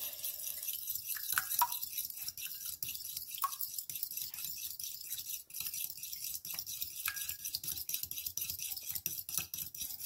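Metal fork beating raw eggs in a glass bowl: a fast, steady clicking and scraping of the fork against the glass, with an occasional short ringing clink.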